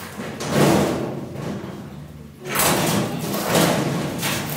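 Knocking and scraping from handling a kitchen base cabinet, its door swung open.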